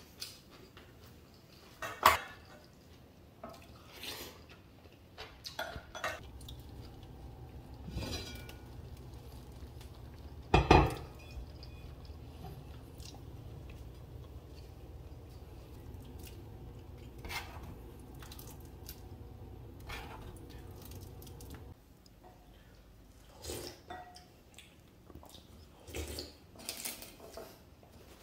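Spoon and utensils clinking against bowls and a pot at scattered moments, with two sharper clatters about two and eleven seconds in. Through the middle runs a steady low rumble, which then cuts off abruptly: a stone pot of scorched-rice soup boiling on the stove.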